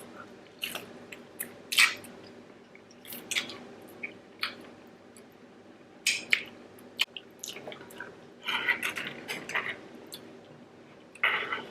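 Eating sounds at a seafood-boil mukbang: irregular wet smacks, clicks and squelches of chewing and handling saucy prawns, with a denser run of them about three quarters of the way through.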